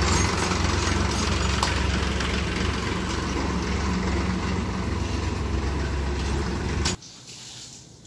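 Diesel farm tractor engine running steadily while towing a loaded trailer. It cuts off suddenly about seven seconds in.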